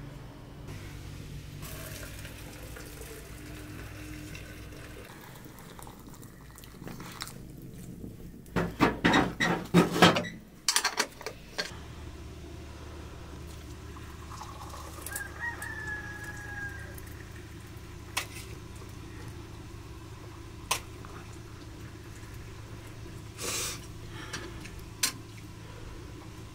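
A rooster crows once, loud, about a third of the way in. Later, tea is poured into glasses, with a few small clinks of glass and spoon.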